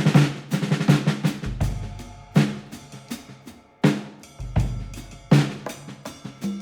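Background music led by a drum kit: sharp snare and bass-drum hits in a steady rhythm over deep bass swells.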